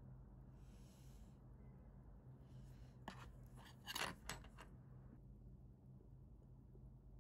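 Small, sharp metallic clicks and scrapes of watchmaking tools handling watch parts, a brief cluster about three to four and a half seconds in. Otherwise near silence over a steady low hum.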